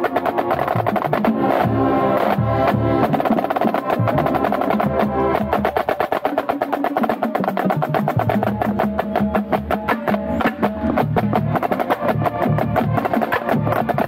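Marching band playing, heard from inside the snare line: rapid snare drum strokes close up, with the band's brass and winds holding pitched notes behind them.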